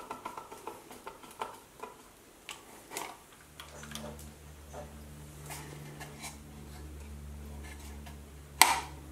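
Small screwdriver driving tiny self-tapping screws into small brass hinges on a plywood box: a run of faint, irregular clicks and ticks. About three and a half seconds in, a steady low hum starts, and a single sharp click stands out near the end.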